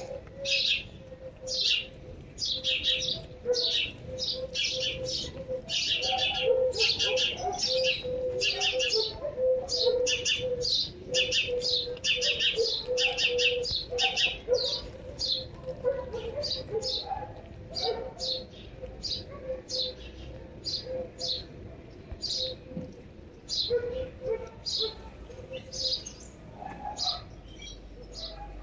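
Small songbirds chirping: rapid runs of short, high, repeated notes, dense through the first half and sparser near the end, over a low steady hum.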